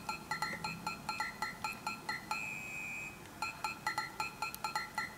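Background music: a light samba tune with quick short high notes at about four a second, and one held note about two and a half seconds in.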